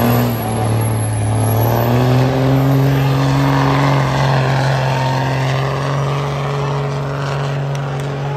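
Diesel semi truck engine running loud at full load as it drags a weight-transfer pulling sled. It is a steady deep drone that climbs slightly in pitch about two seconds in, then holds.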